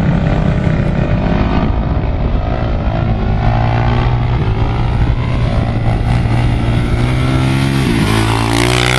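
Sport quad (ATV) engine running hard as it carves across loose dune sand; the engine pitch dips and climbs again near the end as it passes close.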